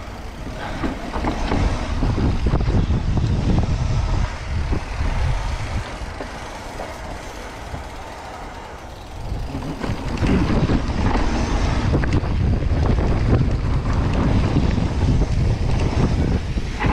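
Mountain bike descending a dirt singletrack: wind buffeting the microphone over the roll of the tyres and the rattle and clatter of the bike. It eases off for a few seconds in the middle, then picks up again.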